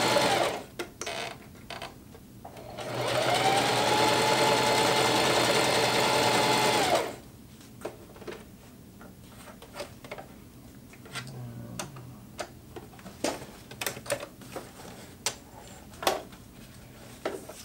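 Singer Heavy Duty HD6360M sewing machine stitching a zigzag through heavy nylon fabric. A short run ends about half a second in, then the motor whine rises to speed, holds steady for about four seconds and winds down. After that come scattered light clicks as the fabric is handled and drawn out from under the presser foot.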